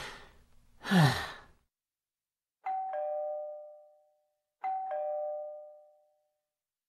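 A breathy sigh falling in pitch, then a two-tone 'ding-dong' doorbell chime rung twice about two seconds apart, each high-then-low pair ringing out for over a second: a visitor at the door.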